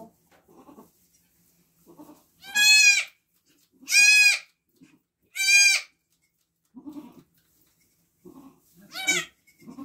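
Nigerian Dwarf goat bleating: three loud, high-pitched bleats about a second and a half apart, then a shorter fourth near the end, with faint low sounds in between.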